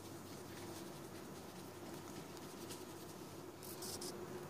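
Stencil brush dabbing and scrubbing paint through a stencil sheet: faint scattered light taps and scratchy brushing over a faint steady hum. Near the end comes a brief rustle.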